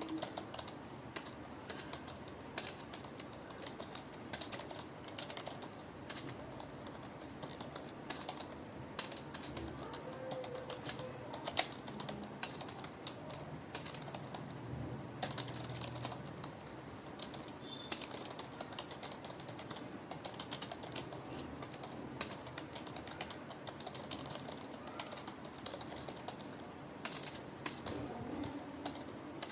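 Computer keyboard typing: a steady stream of key clicks, with a few louder keystrokes standing out.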